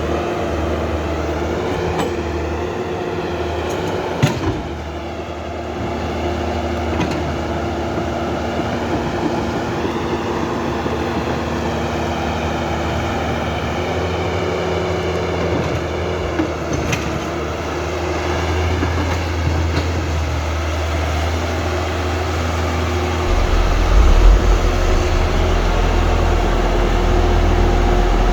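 Whirring of the electric motors and gearboxes of radio-controlled toy excavators and a bulldozer at work, with a whine that wavers up and down and a few sharp knocks. A deeper rumble joins near the end.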